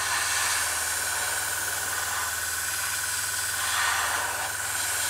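Gravity-feed airbrush spraying paint: a steady hiss of air, over the low hum of a small hobby air compressor.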